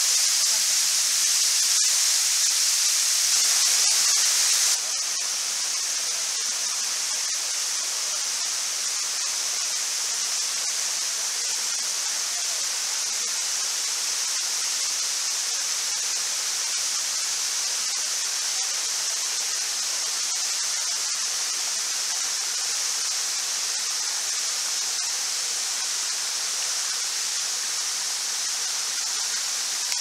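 Steady rushing hiss of a 50-metre waterfall pouring down a rock face, slightly quieter from about five seconds in.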